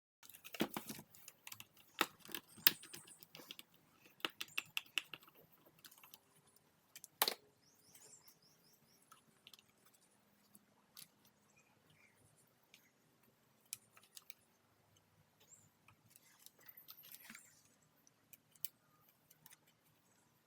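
Irregular clicks, taps and light rattles of plastic parts being handled on a vacuum power nozzle during disassembly. They are busiest in the first few seconds, with one sharp click about seven seconds in, then only occasional faint ticks.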